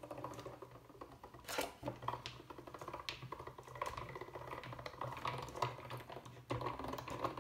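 Hand-cranked die-cutting and embossing machine being cranked to pull a stacked plate sandwich through its rollers for a die-cutting pass: a dense run of fine ticks and clicks from the crank and gearing, with a few louder clacks.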